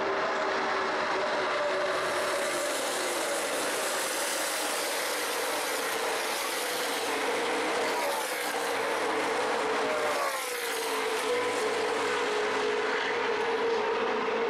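A pack of NASCAR Nationwide stock cars' V8 engines at full throttle, a steady, dense engine drone with the pitch swinging as individual cars go by, most plainly about two-thirds of the way through.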